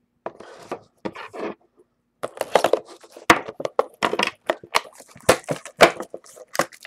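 Trading cards and their packaging being handled: soft rustles at first, then from about two seconds in a busy run of crinkly rustling and sharp clicks.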